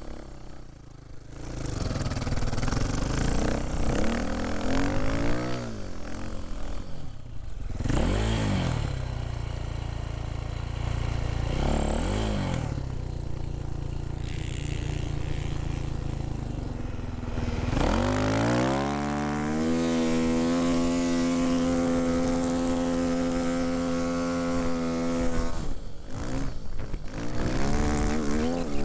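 Dirt bike engine revving as it is ridden through soft sand. The pitch climbs and drops several times as the throttle opens and gears change. Past the middle it holds steady at high revs for about five seconds, then falls away.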